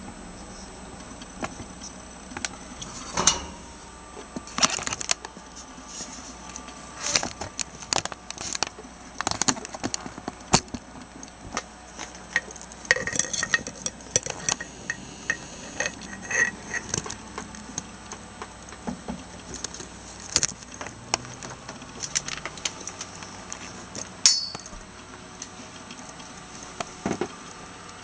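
Scattered metallic clicks, clinks and rattles from handling a vintage Toastmaster 7009 toaster oven and its wire rack, with one louder ringing clink near the end.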